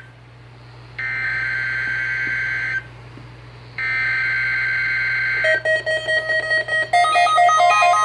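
EAS (SAME) header on NOAA Weather Radio for a required weekly test: two bursts of harsh, buzzing digital data tones, each under two seconds with about a second's pause between them. About five and a half seconds in, a quick run of electronic beeps starts, stepping back and forth between pitches.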